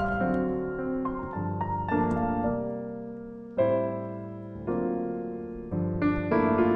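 Background music: soft piano, chords struck and left to ring, a new chord about every second or two.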